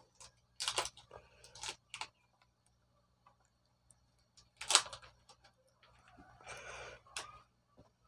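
Scattered sharp clicks and a brief rustle of gloved hands handling small parts and wiring: a handful of clicks, the loudest about halfway through, and a short rustle near the end.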